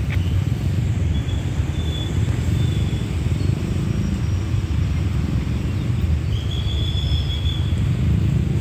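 Low, steady rumble of an approaching passenger train hauled by a State Railway of Thailand GEA-class diesel-electric locomotive, with a couple of faint high squeals.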